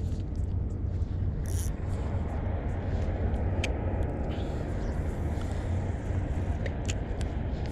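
A steady low rumble, with light clicks here and there from a spinning rod and reel being handled and cast.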